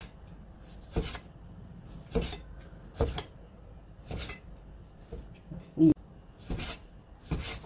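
Cleaver slicing lean pork thinly on a wooden chopping board, each stroke ending in a knock of the blade on the board, about one a second, with one louder knock after about six seconds.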